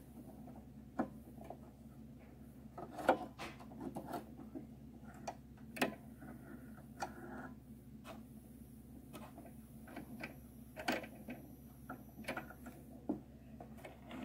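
Scattered light clicks and ticks of hands rethreading a Brother XM2701 sewing machine: thread drawn through the needle area and the presser foot and plastic parts touched, over a faint steady low hum.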